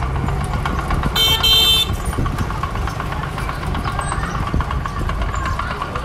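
Heavy-equipment engine running steadily with a low rumble, with a short high horn toot about a second in.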